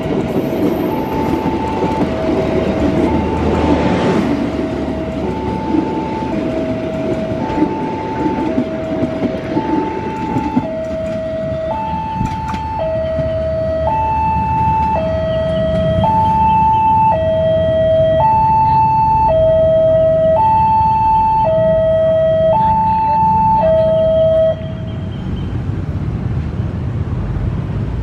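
Railway level-crossing warning alarm sounding a steady two-tone high-low alternation, about one tone every half second, over the rumble and wheel clatter of a passing passenger train that fades as the train draws away. The alarm grows louder about halfway through and cuts off suddenly near the end, as the crossing clears after the train.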